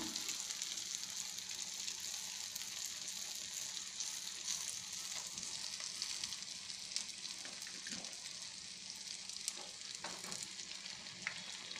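Punugu (fermented idli-dosa batter fritters) deep-frying in a small pan of hot oil: a steady, high sizzle of bubbling oil. A few light clicks of a slotted spoon against the pan come in the second half as the fritters are turned.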